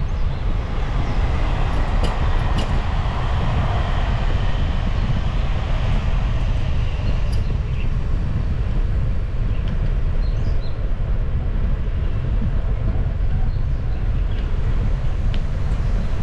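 Steady wind rumble on the microphone mixed with tyre noise from a bicycle rolling along an asphalt path, with a few faint ticks.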